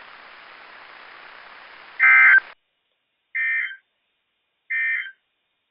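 Weather radio hiss, then three short bursts of EAS/SAME digital data tone about 1.3 seconds apart, the first the loudest. This is the end-of-message signal that closes a NOAA Weather Radio alert.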